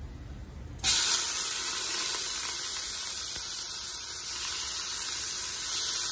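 Chopped onion dropped into hot oil and butter in a stainless-steel pot: a sudden loud sizzle bursts in just under a second in and carries on steadily as the onion fries and is stirred.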